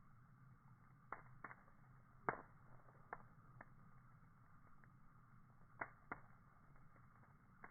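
Campfire crackling: irregular sharp pops and snaps of burning wood, the loudest about two seconds in and a close pair near the six-second mark.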